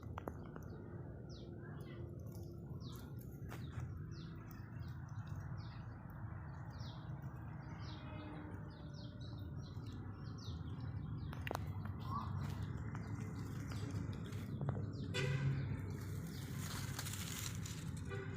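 A small bird calling over and over, short high falling chirps a bit more than once a second, over a steady low outdoor background rumble. Near the end a louder hissing noise comes in.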